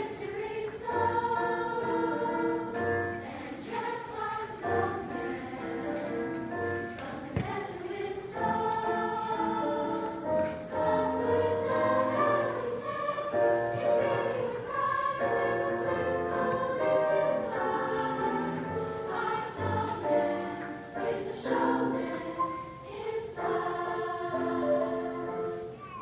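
A girls' school choir singing a Christmas song in several-part harmony, in sustained phrases with short breaks between them; the singing drops away just before the end.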